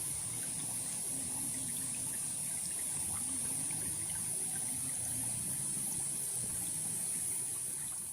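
Forest water running steadily, with insects keeping up a constant high-pitched buzz over it.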